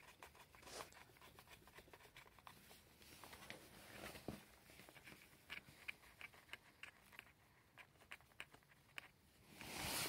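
Faint handling noises as a spark plug is turned in by hand on a Stihl HS45 hedge trimmer: a scatter of small clicks and light rustles, with a louder rustle near the end.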